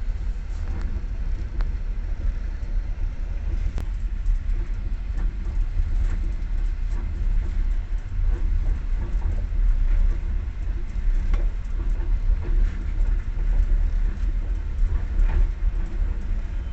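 Train wheels rolling over the rails: a steady low rumble with scattered knocks of the wheels, and one sharp click about four seconds in.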